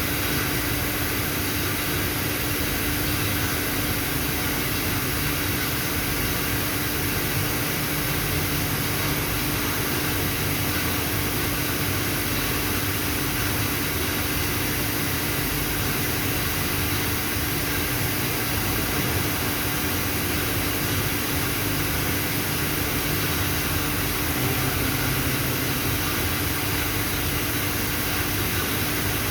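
Steady drone of running industrial machinery: an even hiss with a constant low hum, unchanging throughout.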